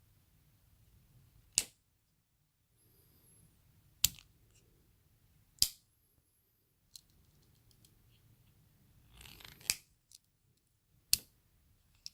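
Phillips screwdriver tool of a Victorinox Swiss Champ Swiss Army knife being snapped open and shut against its spring, five sharp clicks a second or two apart, with a few fainter ticks and some handling rustle between them.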